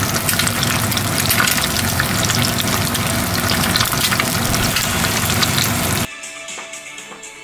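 An egg frying in a square tamagoyaki pan, sizzling and crackling steadily; the sizzle cuts off suddenly about six seconds in, leaving soft background music.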